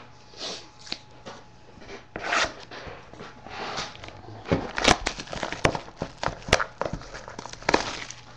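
Cardboard trading-card box being handled and opened by hand: rustling and scraping of the lid and packaging, with several sharp knocks in the middle.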